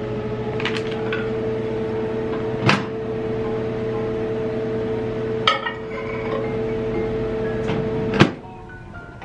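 A kitchen appliance humming steadily, with a few sharp clicks, until a loud click about eight seconds in stops the hum.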